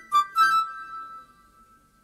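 Instrumental backing music of the song: a quick phrase of three high notes, the last held and fading out about a second in, then a near-silent pause.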